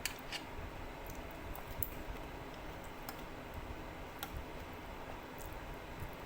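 Eating sounds: a few scattered soft clicks and smacks from chewing, about one every second or so.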